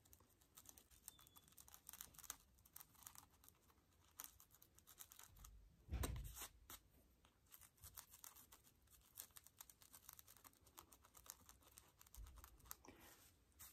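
Faint scratching and ticking of an eyebrow shaper razor scraping at the knots along a lace front wig's hairline, with a single soft thump about six seconds in.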